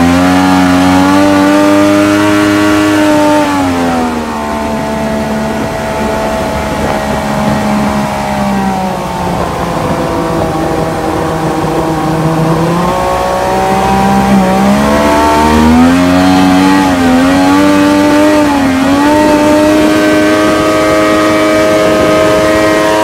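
1100cc jet-ski engine driving a homemade jet boat's water jet, running hard. Its pitch falls a few seconds in and stays lower for a while, then climbs back with a few quick dips and rises before holding a steady high note near the end.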